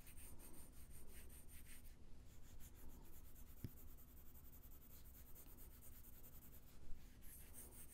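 Faint pencil shading strokes rubbing on paper, with a soft knock about halfway through.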